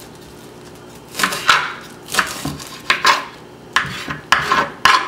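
Kitchen knife chopping rolled collard green leaves on a wooden cutting board: a series of sharp cuts, roughly two a second, starting about a second in, each with a brief crisp slicing sound through the leaves.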